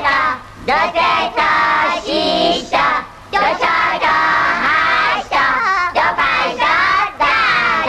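A children's song: high, childlike voices singing over music, in short phrases with brief pauses between them.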